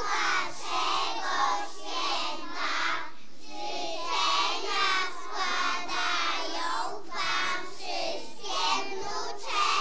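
A group of preschool children singing a song together, in phrases of held, wavering notes.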